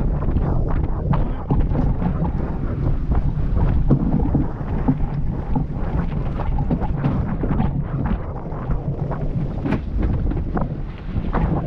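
Wind buffeting the microphone, over the rush of water along the hull and wake of a Mills 41 racing sailboat under sail. The noise surges and dips in gusts, with scattered brief splashes of spray.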